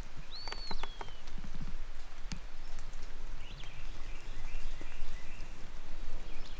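Wild songbirds calling over a light steady hiss, with scattered sharp taps of dripping rain. About half a second in, one clear whistled note rises and then slides down, and a run of quieter chirps follows around the middle.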